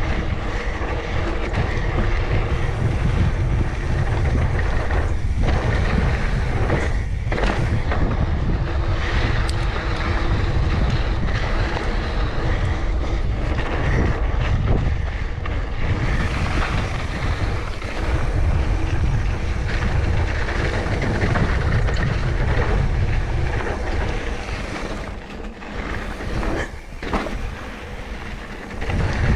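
Mountain bike ridden fast down a dirt trail: a continuous rush of wind buffeting the action camera's microphone, mixed with tyre noise and the bike rattling, with a few brief dips.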